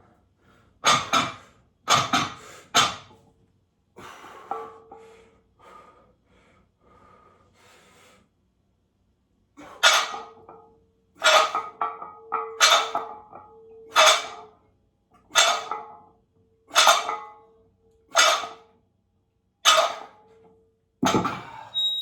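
A man's forceful breathing through a set of weightlifting reps: a few sharp breaths, then a steady run of about nine loud puffing exhales, one every second and a half, one per rep.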